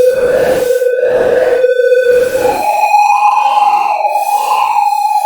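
Electronic sound-design tones: a steady synthesized tone with rhythmic pulses of noise, then about halfway through the tone jumps higher and starts warbling slowly up and down.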